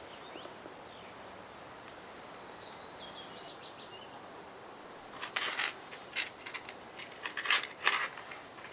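Outdoor background with a bird's song falling in pitch and ending in a short stutter, followed a couple of seconds later by a run of sharp clicks and knocks, the loudest near the end.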